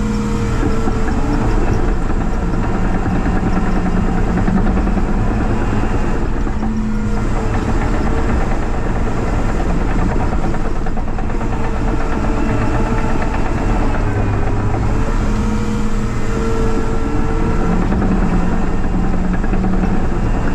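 Cat 953C track loader's diesel engine running steadily under work, its note dipping and rising slightly a few times. The muffler is broken.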